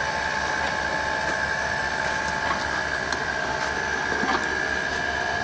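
Jack-plane slot-clearing machine running steadily with a high whine, just after being switched on, with a few faint clicks from its mechanism.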